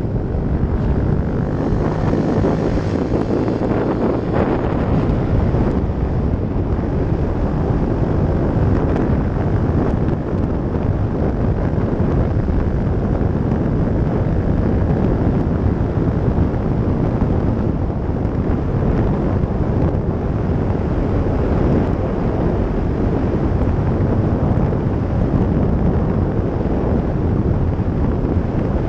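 Yamaha YS 125's single-cylinder four-stroke engine with a LeoVince exhaust, pulling steadily on an easy uphill ride, mixed with heavy wind noise buffeting the helmet-mounted microphone.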